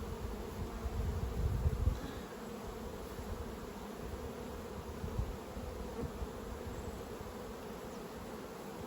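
Honeybees buzzing steadily around an open hive, a dense even hum, with a brief low rumble about a second in.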